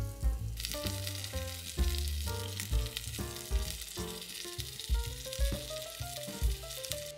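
Chicken pieces frying in hot oil in a pan: a steady sizzle that starts about half a second in, over background music with a drum beat.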